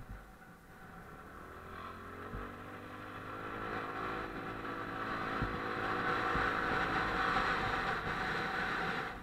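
Motorcycle engine heard from on board, pulling steadily with its pitch and loudness rising for several seconds as the bike gathers speed, then easing off near the end as the throttle closes. A few dull low thumps come through along the way.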